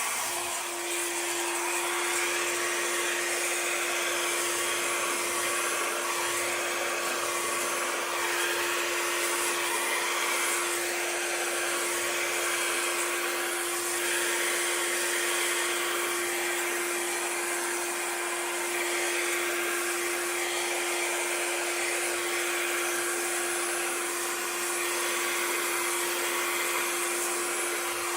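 Hair dryer running steadily, blowing a constant rush of air. A steady hum joins it about a second in.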